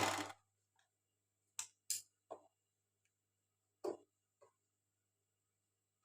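A short rush of noise that dies away in the first half second, then five separate light clicks and knocks spread over the next few seconds, over a faint steady hum.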